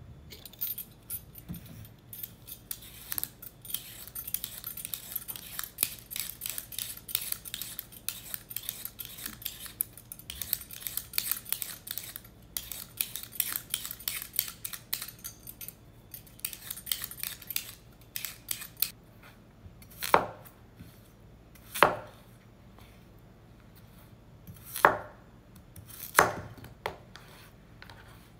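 A vegetable peeler scraping rapidly and repeatedly over raw potatoes for most of the time, stopping about nineteen seconds in. After that, a chef's knife cuts the peeled potatoes into chunks on a wooden cutting board, five separate chops.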